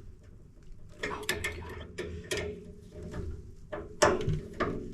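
Radiator valves being checked and turned by hand: a run of sharp mechanical clicks and knocks, the loudest near the end.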